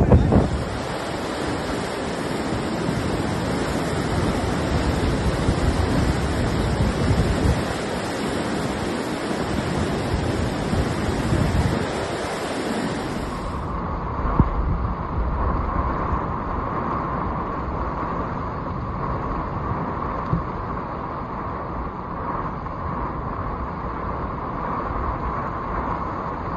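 Fast-flowing floodwater rushing, with wind buffeting the microphone, a steady rushing noise. About 14 seconds in it switches abruptly to a storm of wind-driven heavy rain and gusting wind.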